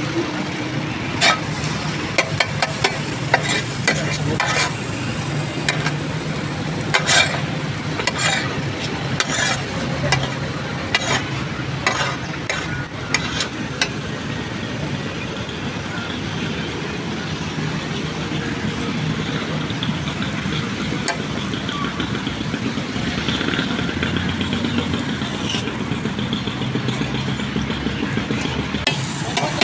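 Eggs sizzling on a big flat tawa, with sharp metal clicks and scrapes of a spatula working on it, many of them in the first half. Steady street traffic runs underneath.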